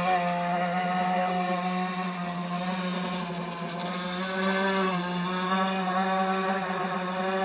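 T2M Barracuda RC boat's brushless motor and prop shaft running at speed: a steady buzzing drone whose pitch shifts slightly about five seconds in. The owner says the undersized propeller and shaft only vibrate above certain revs, which keeps the boat from going fast.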